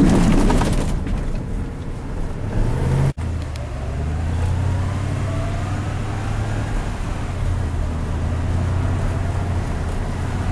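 A motor vehicle's engine runs with a steady low hum, broken by an abrupt cut about three seconds in. A faint rising whine sits over the hum in the middle stretch.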